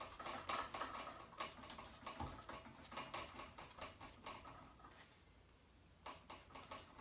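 Faint, irregular scratching and dabbing of a paintbrush working acrylic paint on a stretched canvas, with a brief pause about five seconds in.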